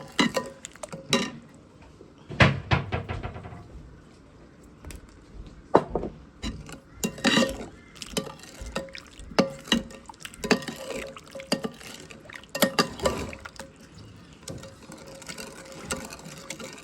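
Kitchen clatter: dishes, pots and utensils knocking and clinking at irregular intervals, with liquid being poured, as a sauce is mixed.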